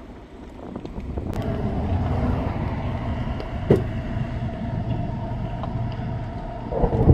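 A motor vehicle's engine running steadily, building up over the first two seconds and then holding, with one short knock a little past the middle.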